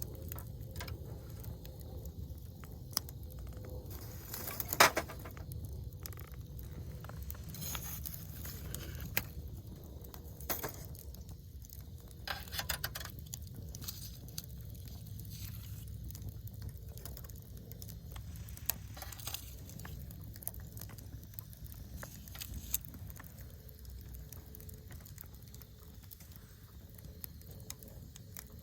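Wood campfire crackling: irregular sharp pops and snaps, the loudest about five seconds in, over a low steady rumble.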